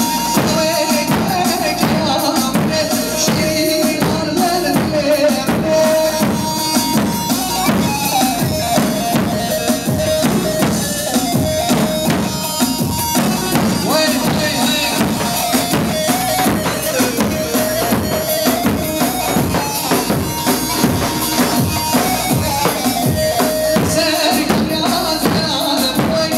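Live grani halay dance music: a davul bass drum beats a steady, driving dance rhythm under a held and ornamented melody line.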